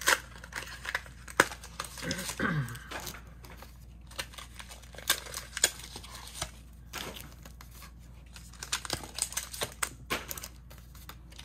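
Foil booster-pack wrappers crinkling and rustling as the packs are picked up and laid onto a stack, with scattered light crackles and taps.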